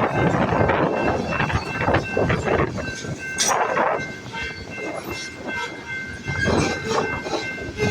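Loaded grain train's cars rolling past: wheels rumbling and clattering over the rail joints, with irregular knocks and a steady high-pitched squeal held over it.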